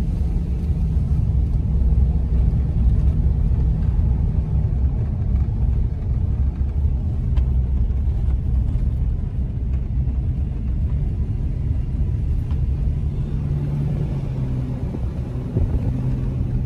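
Car driving up a winding road, heard from inside the cabin: a steady low engine and road rumble. The engine note drops a little about four seconds in and climbs again near the end.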